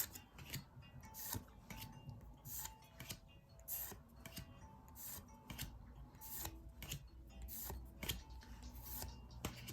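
A Pokémon trading card booster pack being opened and its cards handled: a quiet series of short crinkling and sliding sounds, irregularly spaced.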